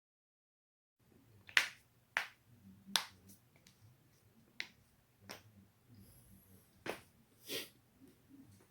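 Human joints cracking: a series of about nine sharp, separate pops at irregular intervals, starting about a second in, with the first ones loudest. These are neck and back joints being popped.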